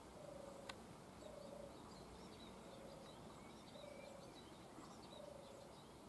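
Faint birdsong: scattered high chirps from small birds, with a short low hooting note repeated about every second and a half and a single click a little under a second in.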